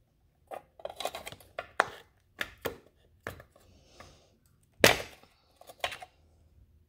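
Irregular plastic clicks and knocks as a hand works at a motorcycle's fuse box cover, with the loudest snap about five seconds in.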